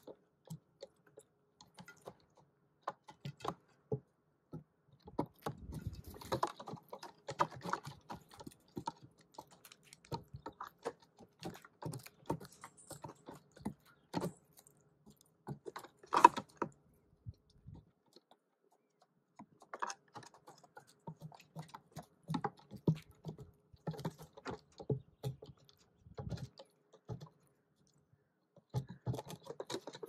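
Hooded crows' claws tapping and scratching on wooden decking and their beaks pecking at the boards: irregular dry clicks and taps, with one louder knock about halfway through followed by a short lull.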